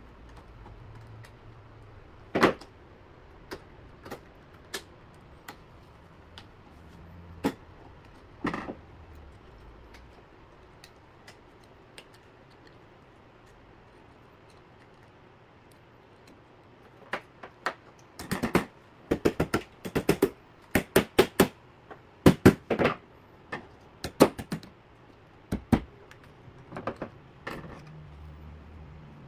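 Sharp metal clicks and clacks from hand tools and a jumper-cable clamp being worked on. A few scattered clicks come first, then a dense run of rapid clicks lasts about ten seconds in the second half.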